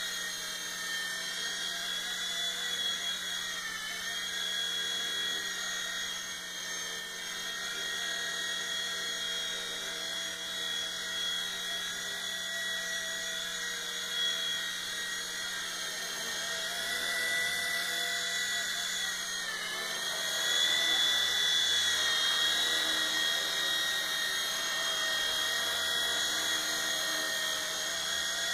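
Hobbyking FP100 (V911) micro RC helicopter hovering: a high, steady whine of its electric motors and spinning rotor. The pitch dips briefly twice, and it runs louder for the last several seconds.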